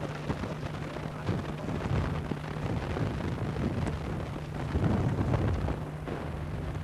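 Wind buffeting the microphone: an uneven rushing rumble over a steady low hum.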